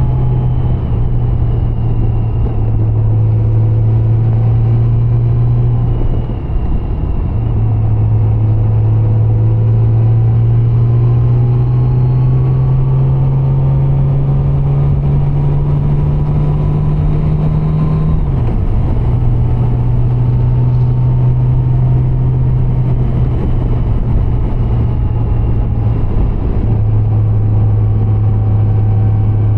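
Honda Gold Wing GL1800 flat-six engine droning at a steady low pitch while riding, over rough road noise. The note climbs slowly, dips briefly about six seconds in, then drops with a short glide around eighteen seconds and steps down again near the end.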